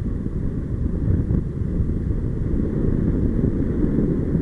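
Steady, low wind noise buffeting the camera microphone from the airflow of a paraglider in flight.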